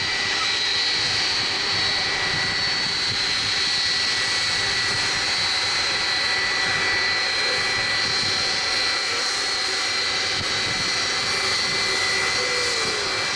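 Jet2holidays Boeing 757-200's Rolls-Royce RB211 turbofans running steadily as it taxis past at low power: a rushing hiss with a steady high whine that holds even throughout.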